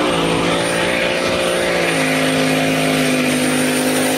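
Pickup truck engine held at high, steady revs while the rear tyres spin in a smoky burnout, the tyre noise a hiss under the engine.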